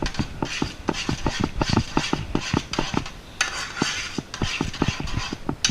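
A spoon clicking and scraping rapidly against a container while working a thick sauce, about five quick knocks a second, with a short pause about three seconds in.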